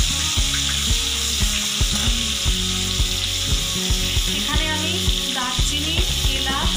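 Butter and vegetable oil sizzling in a kadai as a steel spatula stirs it, a steady hiss. Background music with a steady beat plays over it, and a melody comes in about halfway.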